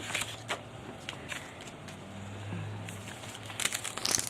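Quiet handling of trading cards and packs: scattered soft clicks and rustles, growing into a brisk rustle near the end.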